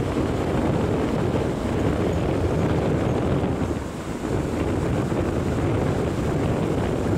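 Wind buffeting the microphone, a steady low rumbling roar with no clear engine pitch.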